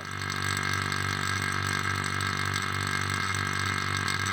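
Vacuum pump running steadily with an even mechanical hum, drawing the air out of freshly poured epoxy resin in a vacuum chamber to degas it.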